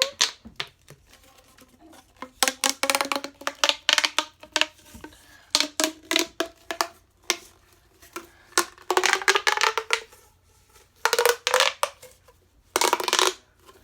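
Plastic pop tube being stretched and squashed, its ribbed sections snapping open and shut in rapid runs of pops and crackles, with a faint rising tone as it extends. It comes in about six bursts with short pauses between.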